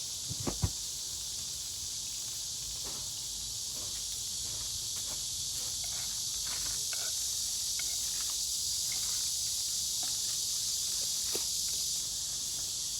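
Steady high-pitched chorus of crickets, with a few sharp clicks and knocks of handled gear about half a second in and faint ticks now and then.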